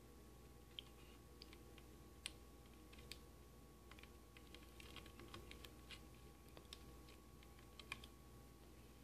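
Faint, irregular small clicks and ticks of component leads and jumper wires being handled and pressed into a solderless breadboard, over a low steady hum.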